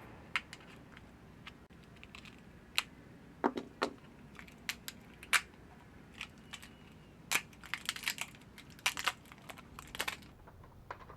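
Plastic packaging being cut open with a cutter and handled: a string of irregular sharp clicks and crackles, thickest about eight to ten seconds in.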